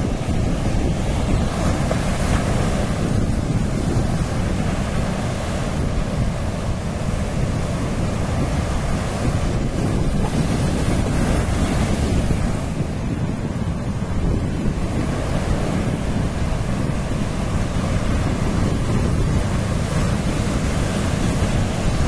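Ocean surf breaking and washing in, its rush swelling and easing every few seconds, with wind buffeting the microphone as a steady low rumble.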